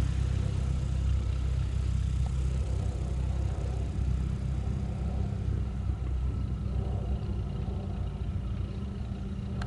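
Cessna 172 light aircraft's piston engine and propeller running steadily, slowly fading.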